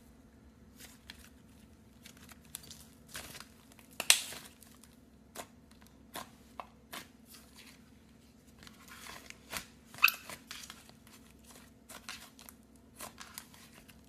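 Slime being squeezed, poked and stretched by hand, giving irregular sticky clicks, pops and crackles, with the sharpest pops about four seconds in and about ten seconds in.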